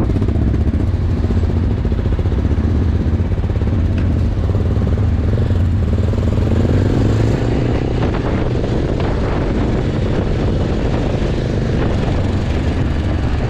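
Motorcycle engine running steadily under way, its low note strong, with wind rushing over the microphone.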